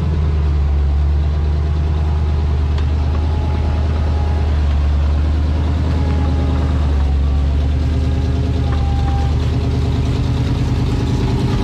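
1985 Toyota pickup's engine running at steady revs under load as the truck climbs a steep rock ledge.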